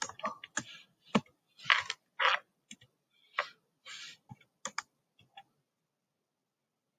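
Computer keyboard typing: irregular keystrokes, the loudest in the first two and a half seconds, stopping about five and a half seconds in.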